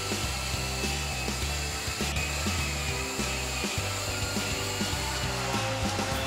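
Upbeat background music with a steady beat and a stepping bass line.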